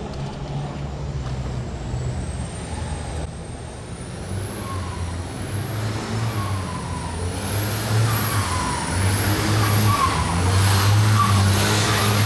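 A heavy engine running with a low steady hum that grows louder through the second half, with a whine that wavers up and down above it.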